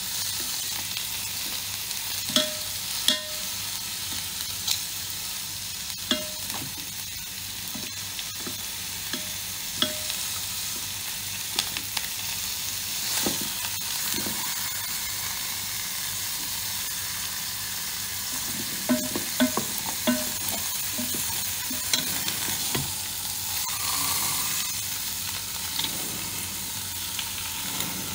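Pork trotters sizzling as they sear in a Ninja Foodi's inner pot, a steady frying hiss. A wooden spatula and metal tongs knock and click against the pot now and then as the trotters are turned.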